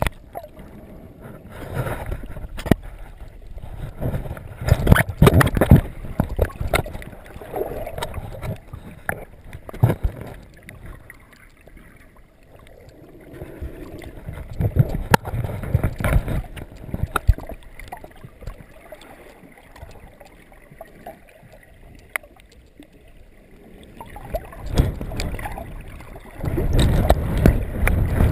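Underwater sound through an action camera's waterproof housing: water sloshing and surging in several swells, with scattered sharp clicks and knocks.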